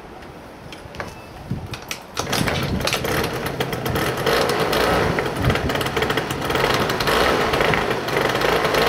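Yamaha Champ RS scooter's 50cc two-stroke engine starting about two seconds in and then running steadily. This is its first start after a carburettor overhaul and a new air filter and spark plug.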